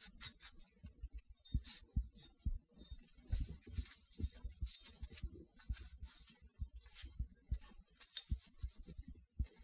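Cotton cloth rubbing over a Zastava M70 pistol's frame in gloved hands: irregular wiping strokes with light handling knocks in between.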